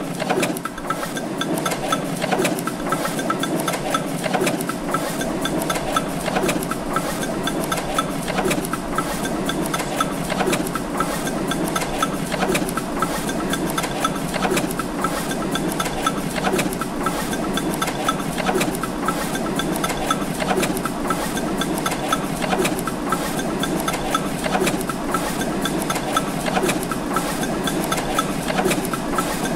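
A machine running with a fast, even clatter of small ticks, from a recorded workshop soundscape.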